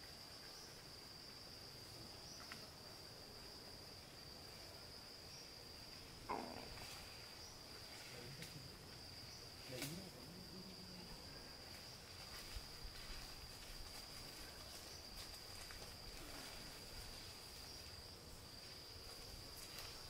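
A steady, high-pitched insect drone in forest undergrowth. Two short falling calls come about six and ten seconds in. Faint footsteps on a dirt path approach in the second half.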